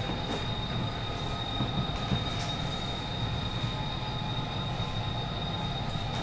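Model freight train rolling along its track: a steady rumble of wheels on rail with a few scattered clicks, and a steady high whine under it.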